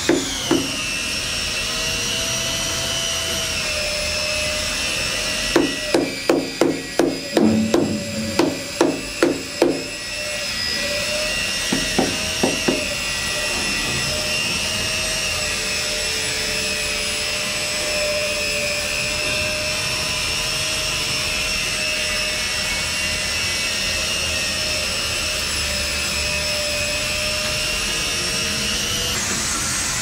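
Knocking from tiles being tapped into place: a run of about nine knocks, roughly two a second, starting a few seconds in, and three more a little later. A steady high whine runs underneath.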